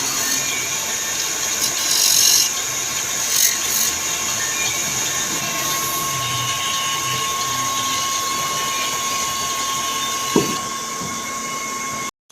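A power tool running steadily while working wood, with a thin steady whine that comes in about halfway through and stops near the end, and a few brief knocks.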